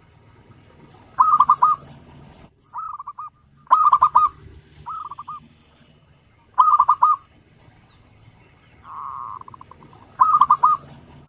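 Zebra dove (perkutut) cooing: about seven short phrases of rapid, staccato coos, one every second or two. One softer, longer rolling trill comes near the end.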